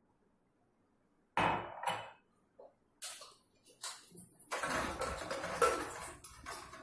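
Aluminium pressure cooker and its lid clattering as the lid is set on the pot and pushed shut: a sharp metal knock about a second and a half in, then a run of clanks and scraping.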